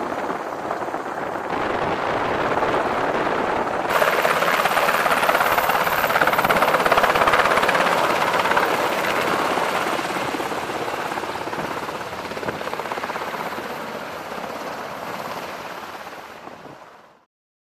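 Navy H-60 Seahawk helicopter's rotor and turbine engines, loud and close. The sound steps up sharply about four seconds in, then fades steadily as the helicopter moves away, and cuts off suddenly near the end.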